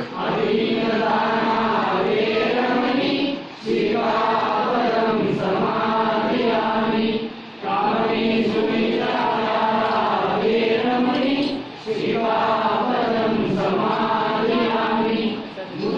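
A congregation of men and women chanting a Buddhist devotional chant in unison, in phrases of about four seconds with a short pause for breath between each.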